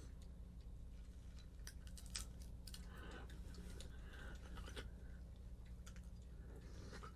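Raccoons chewing and crunching food, with a quick run of crisp clicks about two seconds in and a few more later, over a faint steady low hum.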